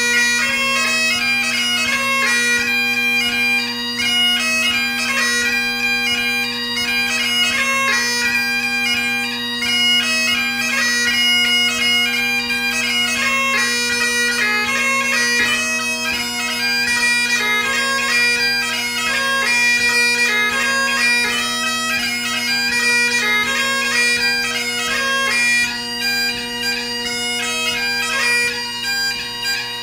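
Great Highland bagpipe played solo: the drones hold one steady low tone under a brisk chanter melody of quick, ornamented notes, a ceol beag (light music) tune.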